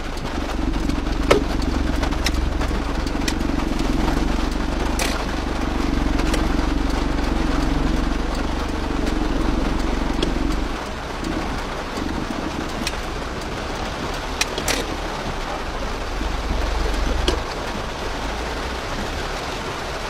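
Road vehicle driving along: steady engine and tyre rumble with a hum that drops away about ten seconds in, and a few short clicks.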